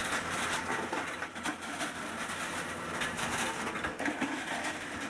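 Rock and gravel clattering and rattling as it tumbles in a Trommex TX20 trommel screen bucket, with the excavator running underneath.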